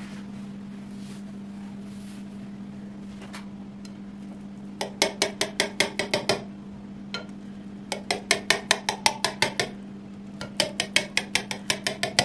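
A knife cutting through a baked casserole in a glass pie dish, its blade tapping against the glass bottom in three quick runs of rapid clicks, about eight a second, each click with a short glassy ring. A steady low hum runs underneath.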